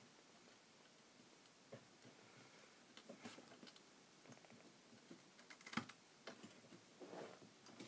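Faint, scattered small clicks and taps of ZIP-package DRAM chips being pressed by hand into their sockets on a memory expansion card, the clearest just before six seconds in.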